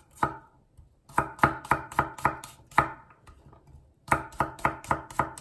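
Chef's knife slicing peeled garlic cloves on an end-grain wooden cutting board: quick knocks of the blade on the board, about four or five a second, in two runs with a pause of about a second between them.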